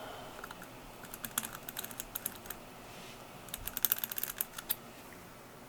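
Quick runs of light, sharp clicks and taps from a socketed chip and small parts being handled on the bench, in two clusters: one about a second in and a denser one around four seconds in.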